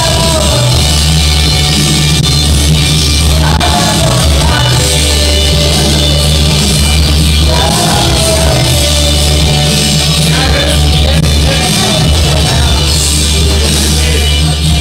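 Karaoke: a loud backing track with a steady heavy bass, and a man singing into a microphone over it in phrases.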